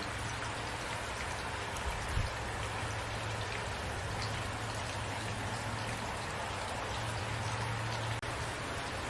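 Steady rain falling, an even hiss with scattered drops ticking, over a low steady rumble. The sound dips out for an instant about eight seconds in.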